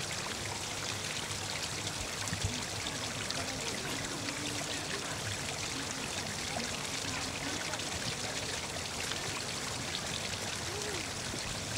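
Water pouring steadily over the rocks of a small garden waterfall, a continuous splashing trickle.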